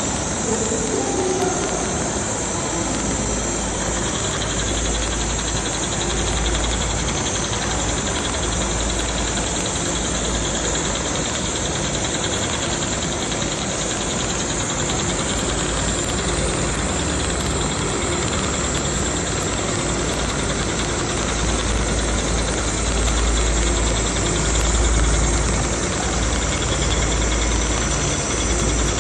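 HighTex BAS-342GXL programmable pattern sewing machine running, its needle stitching with a steady, dense mechanical noise and a low hum.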